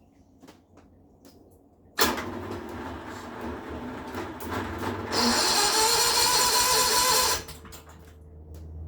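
Harsh metalworking noise on the steel of a 1963 Impala hood during rust repair. It starts abruptly about two seconds in, grows louder and hissier at about five seconds, and cuts off at about seven and a half seconds, leaving a steady low hum from the generator that powers the tools.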